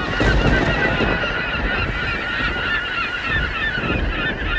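A flock of birds calling: many short, overlapping calls at once, with a low rumble underneath.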